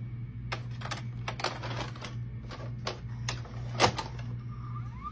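VCR cassette loading mechanism drawing a VHS tape in: a run of plastic and metal clicks and clatter from the carriage and gears over a steady low hum, a loud clunk about four seconds in as the cassette seats, then a short rising motor whine.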